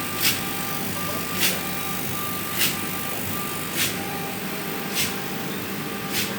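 CNC stone router running with a steady noise, a short swish repeating about every 1.2 seconds.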